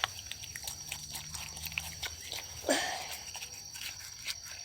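Sticky slime being worked and pulled by hand: many small wet clicks and crackles, with one short, louder squeal-like sound about halfway through.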